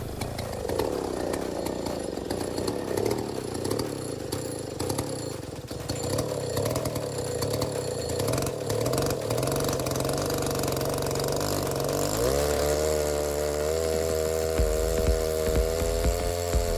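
Neotec 8105 105cc two-stroke chainsaw running on a chainsaw mill, its engine speed wavering, then rising about twelve seconds in to a steadier, higher pitch. Low knocks near the end.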